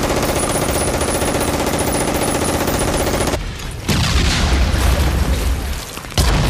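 War-film battle sound effects: rapid machine-gun fire for about three and a half seconds, then a sudden loud burst with a deep rumble about four seconds in, and another sudden loud burst near the end.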